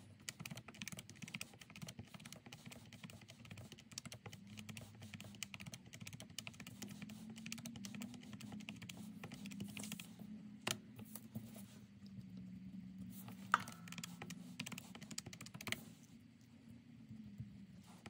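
Plastic keys of a Catiga desktop calculator being pressed in quick, irregular runs of clicks as figures are keyed in and added up.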